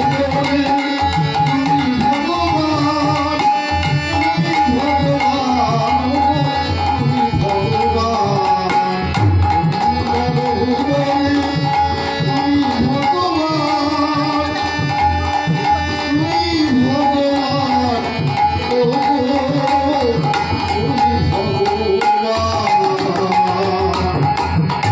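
Devotional song: a man singing over a harmonium, with its held reedy drone, while a hand-played double-headed barrel drum of the khol type keeps a busy rhythm.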